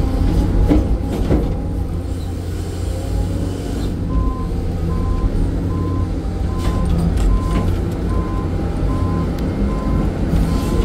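Excavator's diesel engine running steadily, heard from inside the cab, with a few knocks in the first second or so. From about four seconds in, a warning alarm beeps steadily, about two short beeps a second.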